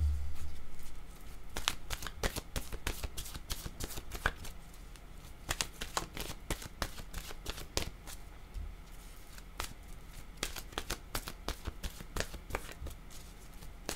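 Oracle card deck being shuffled by hand: a long, irregular run of crisp card flicks and riffles, with a low thump at the very start.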